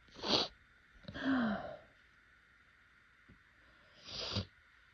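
A person in an allergy sneezing fit: a sharp sneeze just after the start, a sighing breath with a falling pitch about a second in, and another sneeze about four seconds in.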